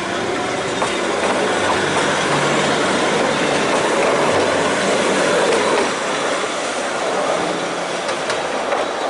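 Eizan Electric Railway Series 900 'Kirara' electric train running past close by. Its wheels and running gear on the rails make a steady noise that is loudest about five seconds in.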